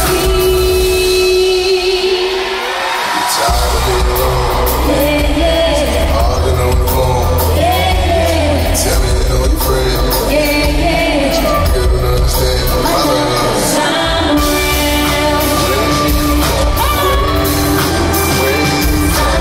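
Live pop music played loud in an arena: a woman singing over a band with a heavy bass beat. The bass and beat drop out briefly about two seconds in, then come back.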